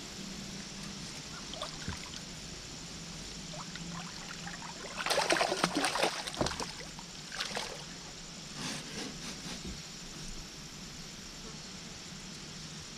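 Water splashing and trickling: a loud burst of splashing about five seconds in, with a few smaller splashes after it.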